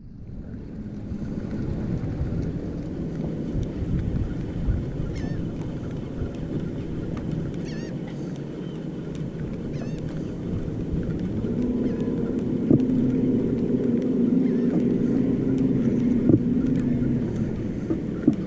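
Wind buffeting the microphone over choppy water lapping at a small boat, with a few faint bird calls in the first half. A steady low hum comes in about midway and fades near the end, and a few sharp knocks are heard.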